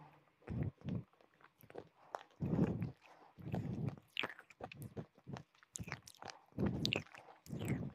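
A person chewing and crunching a hard, chalky material right at the microphone, in irregular crisp crunches with sharp clicks and wet mouth sounds between them.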